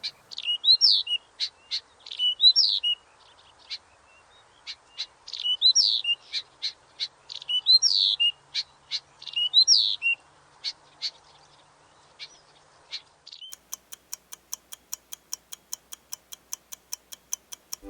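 A bird calling: a repeated, rising-and-falling chirp with short sharp chips in between. About thirteen seconds in, the calls stop and a steady ticking takes over at about four or five ticks a second, the quiz's countdown timer running out.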